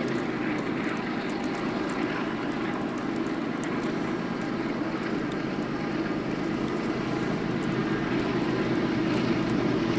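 Approaching freight train's diesel locomotives running under power, a steady drone that grows slightly louder toward the end as the train nears.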